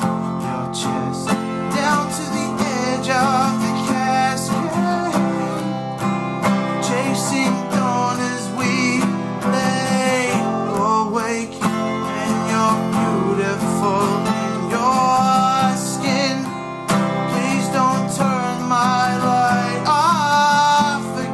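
Two acoustic guitars, a black capoed one and a Fender, played together while a man sings.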